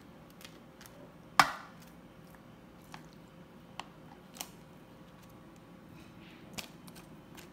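Slotted serving spoon knocking and scraping against a plastic tub and baking pan as cooked ground beef is spooned out. Scattered light clicks, with one sharper knock about a second and a half in.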